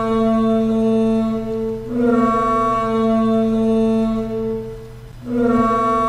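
Reconstructed call of the duck-billed dinosaur Parasaurolophus, air blown through an instrument shaped like its long hollow nasal crest: long, steady, brass-like honks. One honk ends about two seconds in, the next runs to about five seconds, and a third begins just after.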